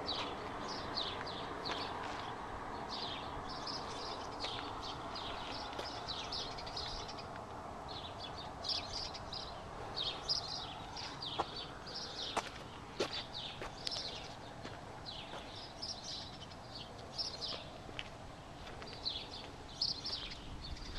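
Small birds chirping over and over in quick, high twitters, over a steady background hum, with a few sharp clicks near the middle.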